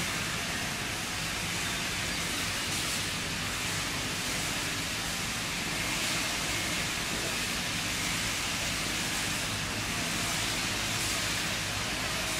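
Steady outdoor background hiss at an even level, with no distinct calls or impacts standing out.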